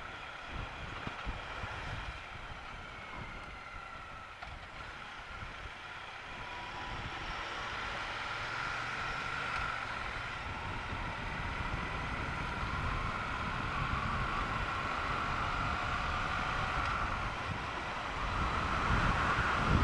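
Triumph Bonneville T120's 1200 cc parallel-twin engine running on the move, with wind buffeting the microphone. Engine and wind grow louder through the second half as the bike picks up speed.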